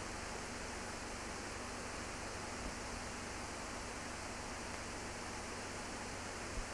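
Steady hiss with a faint hum underneath, with one small click near the end: the noise floor of an old archival film recording, with no sound from the work in the picture.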